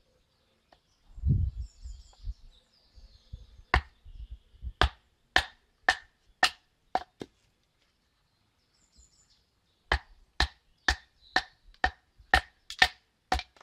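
A wooden club striking the back of a metal blade set in the top of a stick, splitting the wood on a chopping block: sharp, ringing knocks about two a second, a run of about seven, a short pause, then about eight more.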